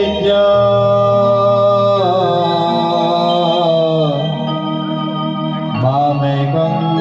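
Sambalpuri folk singing: a male voice holds long notes through a microphone and PA over a steady organ-like drone. The voice slides down about four seconds in and scoops back up near six seconds.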